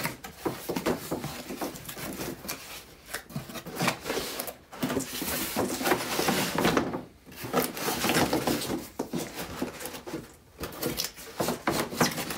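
Cardboard packaging being handled: the inner tray of a boxed RC car scraping and sliding out of its outer cardboard carton, with irregular rustles, scuffs and knocks and a couple of short pauses.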